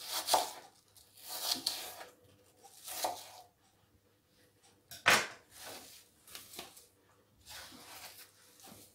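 Knife slicing peeled apple on a plastic cutting board: three scraping cuts in the first three seconds, then one sharp knock about five seconds in, followed by softer rustling as the apple pieces are handled.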